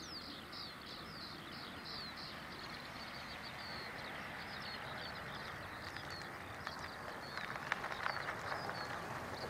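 A bird singing a quick run of high, falling notes, fading after the first couple of seconds. Then a small car approaches along the road, getting louder with clicking and rattling over the last few seconds.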